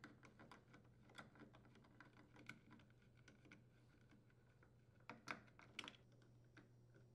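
Faint, irregular clicks and light ticks of a 5/16-inch nut driver working the screws out of a washer's plastic shift actuator, with a few slightly louder clicks about five seconds in.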